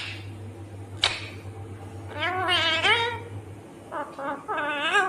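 Indian ringneck parakeet calling in wavering, bleat-like notes: one longer call about two seconds in and a few shorter ones near the end, with a sharp click near the start and another about a second in.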